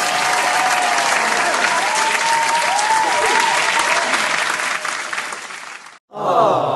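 Crowd applause sound effect: dense clapping with cheering whistles, cutting off about six seconds in. A short, different effect with a sliding, voice-like pitch follows right after.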